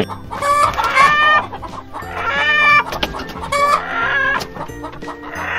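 Chickens clucking and calling: a handful of drawn-out, pitched hen calls one after another, over quiet background music.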